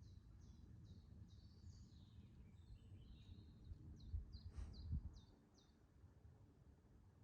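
Faint birdsong: a small bird repeating short high chirps in quick runs, over a low outdoor rumble. A soft thump comes about five seconds in.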